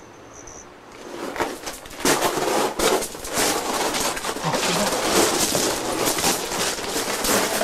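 Irregular crackling and scraping of movement over loose gravel and rock in a cramped cave, beginning about a second in and getting louder near two seconds.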